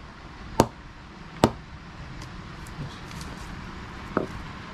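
Red leather cricket ball bounced off the face of an SG Slammer Classic cricket bat to test it: two sharp knocks a little under a second apart, then a lighter knock near the end.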